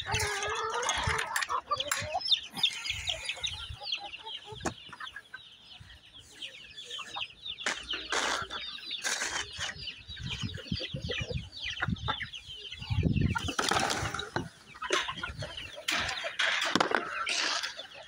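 A flock of backyard hens and roosters clucking without pause, many short overlapping calls, with a few louder noisy bursts around the middle and near the end.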